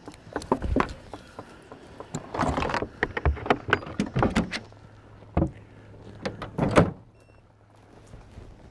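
A string of knocks, clunks and rattles as hounds are unhooked and let off the truck, with a brief scraping rush about two and a half seconds in and a sharp bang near the end of the run. A low steady hum comes in about halfway through.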